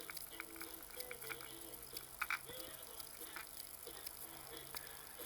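Faint scattered clicks and light knocks of metal motor parts being handled, the loudest a little over two seconds in.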